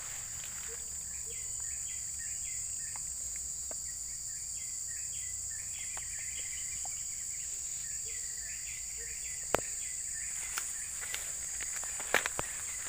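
A steady high-pitched drone of insects in tropical undergrowth, with a run of short repeated chirps over it. A few sharp clicks come about two-thirds of the way in and again near the end.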